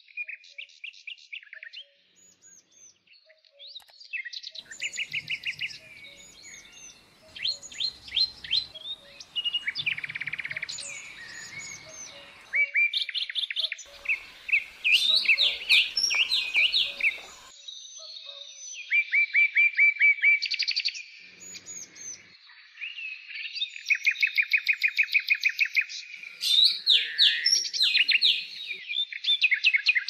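Songbirds singing: phrases of quick, repeated high notes like trills, mixed with short chirps and whistles, with brief pauses between phrases.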